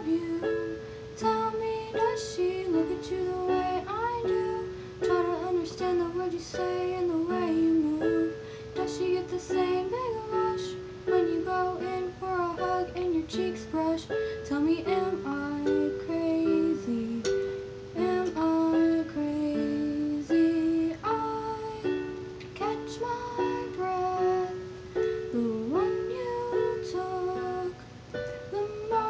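Electronic keyboard played in a steady chordal accompaniment, with a girl's voice singing over it and sliding between notes in places.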